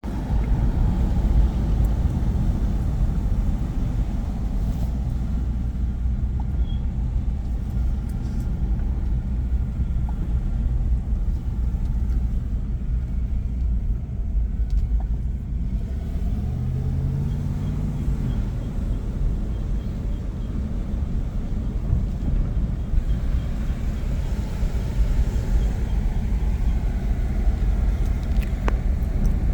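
2001 Dodge Durango driving, a steady low road and engine rumble with a faint high squeak that comes and goes. The owner cannot place the squeak; worn pads or rotors, or a rotor touching its backplate, have been suggested.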